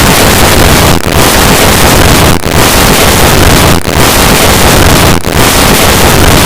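A "heat overload" sound effect: a very loud, harsh rushing noise, like distorted static, that cuts out briefly about every second and a half, in five dips across the stretch.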